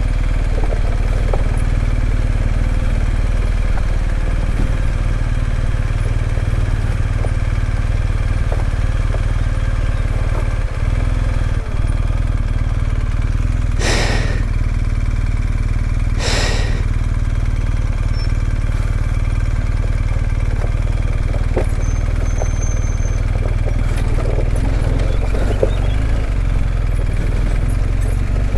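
A motorcycle engine running steadily under a constant low rumble. About halfway through there are two brief rushing bursts of noise, a couple of seconds apart.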